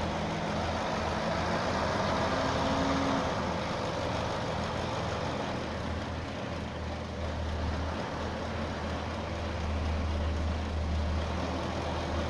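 Dump truck's diesel engine running steadily while its tipper bed is hoisted to dump a load of dirt.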